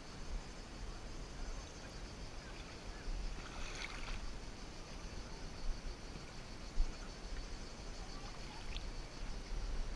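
Kayak paddling, heard muffled through a GoPro waterproof case: the paddle dips and water washes against the hull, with a brighter splash about four seconds in.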